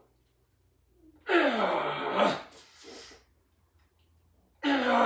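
A man grunting with strain as he presses a barbell near failure on an incline bench press: two loud voiced efforts, the first about a second in and falling in pitch, the second near the end and held steady.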